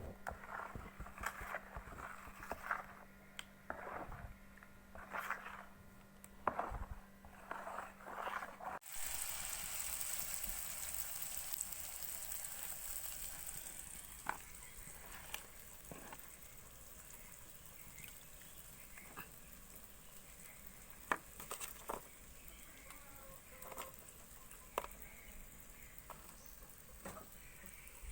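Scattered knocks and clicks of kitchen utensils, then, about nine seconds in, a sudden change to a steady sizzle of rakik maco batter frying in hot oil, with occasional clicks over it.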